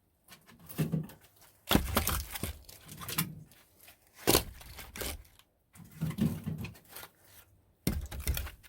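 Split firewood being handled and stacked: pieces of wood knocking against each other in about seven irregular knocks, with rustling between them.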